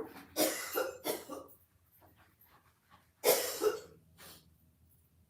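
A person's coughing fit: three coughs in quick succession, then after a pause a loud cough about three seconds in and a weaker one after it. The cough comes from food going down the wrong way while eating and talking.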